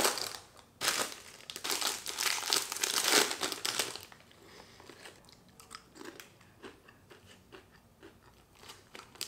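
Crinkly snack packaging rustling and crumpling as it is pulled out and opened, loud for about the first four seconds. Then quieter, with soft scattered crunches of the snack being chewed.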